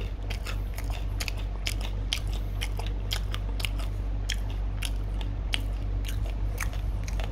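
Close chewing of hard, crispy dried vegetable and fruit chips: many short, irregular crunches, over a steady low hum.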